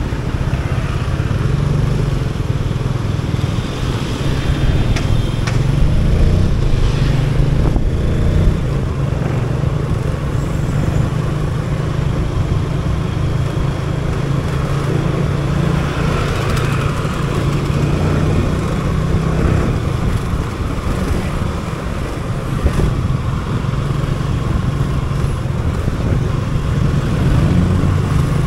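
Motorcycle riding through city traffic: its engine runs steadily under a constant rush of road and traffic noise, with other vehicles passing now and then.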